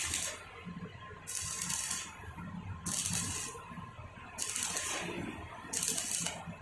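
Stick-welding arc from a 2.6 mm electrode on a Daiden MIGI 130 inverter welder set to 70. It crackles and hisses in short bursts of under a second, about four times, as the arc is struck and broken again and again. The welder then judges the setting too high for this rod.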